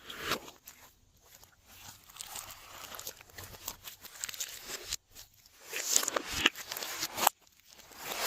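Hands squishing and kneading glossy slime: wet clicks and crackling pops in spells that stop suddenly about five seconds in and again near the end.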